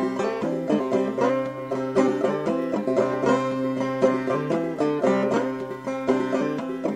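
Banjo music: a banjo picking a quick, steady run of notes.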